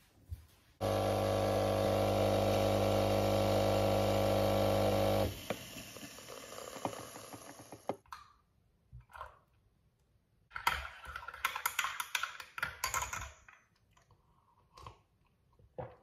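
An electric coffee machine's pump hums loudly and steadily for about four and a half seconds, then stops abruptly, leaving a fainter hiss for a couple of seconds. Later, a spoon clinks quickly against a ceramic mug for about three seconds as it stirs.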